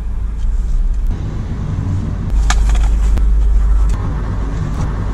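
Car running, heard from inside the cabin: a steady low engine and road rumble that grows louder for a second or two about halfway through. A few short rustles and clicks come on top around the middle.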